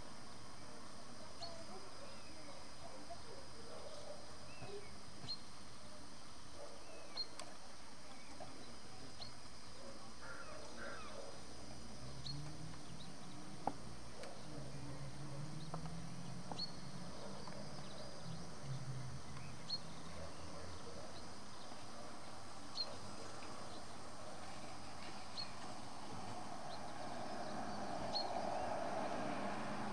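Small garden birds giving short, high single chirps every second or two over a steady background hiss. A low drone runs through the middle, and a louder rushing noise builds near the end.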